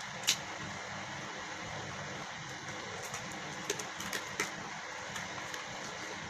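Steady background hum with a few small, sharp clicks and taps: one about a third of a second in and a quick cluster around four seconds in.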